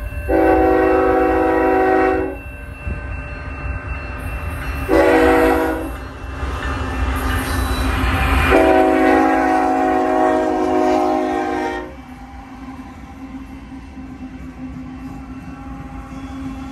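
Freight locomotive air horn sounding for a grade crossing: a long blast, a short one, then a longer one, over the low rumble of the diesel locomotives. After the horn stops, the passing engines keep up a steady low hum.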